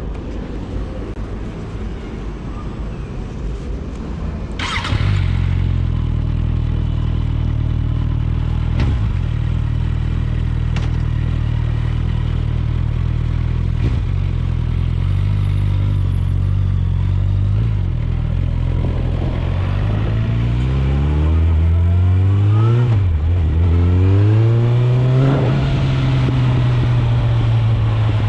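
Suzuki GSF 650 Bandit's inline-four engine through an Akrapovic exhaust. It comes in suddenly about five seconds in and runs steadily. Near the end it revs up twice with a brief drop between, as in a gear change, then holds a higher steady note.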